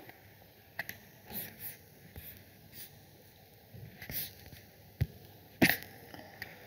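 Computer mouse clicks and short breathy puffs close to the microphone, scattered over quiet room tone, with a sharp click about five seconds in and the loudest one just after it.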